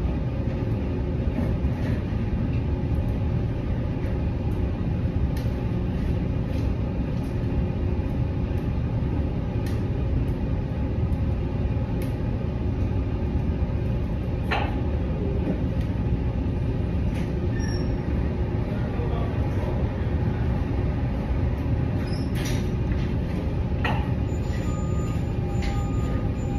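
Steady low machinery rumble filling the room, with a few faint clicks and knocks.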